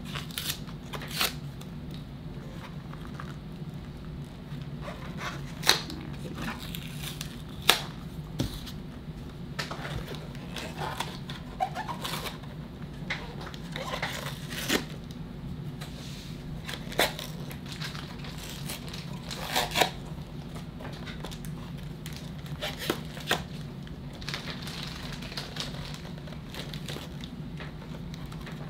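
Packaging of a trading-card hanger box being torn open and crinkled, with scattered sharp snaps and taps as it and the cards are handled.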